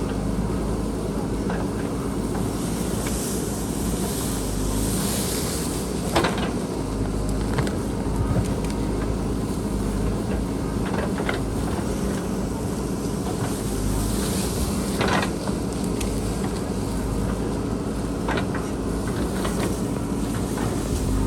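Diesel engine of a JCB backhoe loader running steadily under working load, with several sharp knocks scattered through, about six seconds in, then around eleven, fifteen and eighteen seconds.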